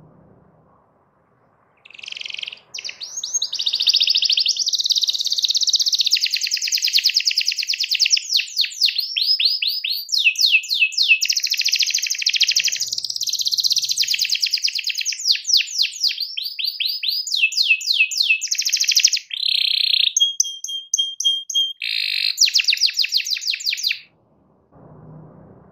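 Domestic canary singing a long, unbroken song of fast trills and rapid downward-sweeping notes, with a held level whistle about three-quarters of the way through. The song starts about two seconds in and stops shortly before the end.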